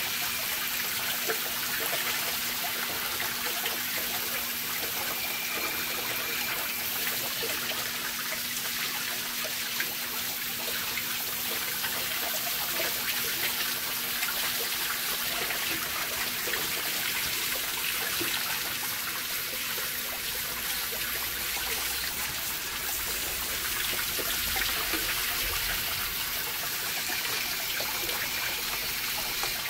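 Spray of water from a hose nozzle pattering steadily onto a metal engine valve cover and the wire rack beneath it. The water is heating the part, which is painted with heat-changing thermochromic paint.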